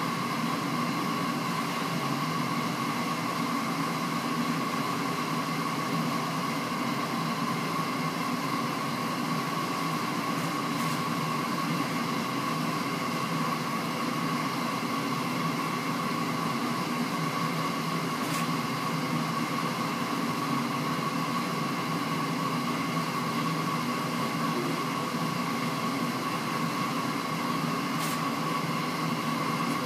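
Steady machine hum with a constant high-pitched whine, and a few faint ticks.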